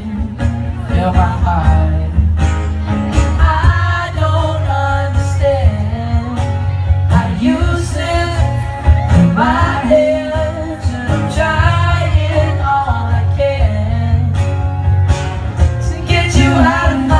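Live acoustic pop performance: a male voice singing over strummed acoustic guitars, amplified through a PA with a strong bass and heard from in the crowd.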